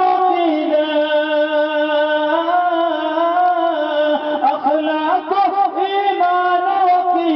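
A solo voice singing the slow opening of a Punjabi naat, drawing out long held notes that waver and bend. The line turns to quicker ornamented pitch turns about halfway through.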